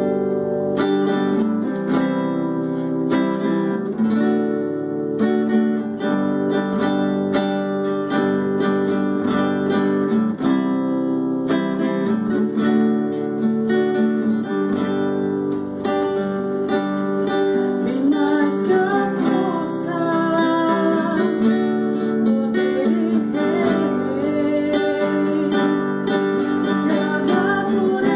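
Acoustic guitar strummed in a steady rhythm, playing a worship song. About two-thirds of the way through, a woman's voice begins singing along with it.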